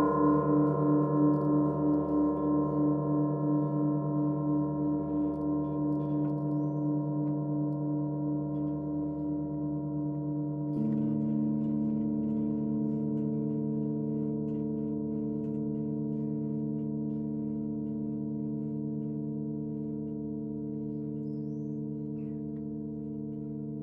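Russian church bells ringing out after being struck, their tones slowly dying away with a slow wavering beat. About eleven seconds in a lower bell tone comes in softly, and the ringing fades on.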